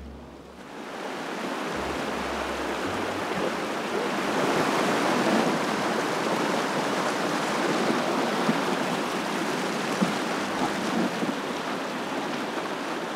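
Shallow river rapids rushing over rocks, a steady loud rush of water that swells in over the first second or so.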